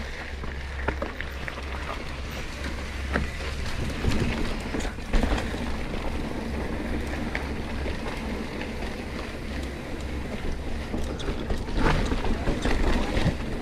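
Wind buffeting the action camera's microphone and tyres rushing over a dirt trail as a Yeti SB100 mountain bike descends, with scattered knocks and rattles from the bike over bumps.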